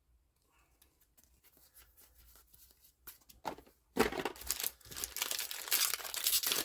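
Faint handling of cards, then, about four seconds in, a trading-card booster pack wrapper being torn open and crinkled, loud and continuous.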